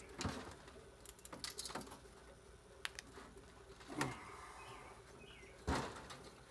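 Scattered light clicks and knocks of circuit boards being handled, with quiet stretches between; the firmest knock comes near the end.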